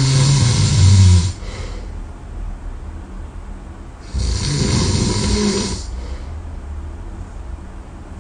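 A sleeping person snoring: two loud snores about four seconds apart, each lasting about a second and a half, with a low rumble under a harsh airy noise.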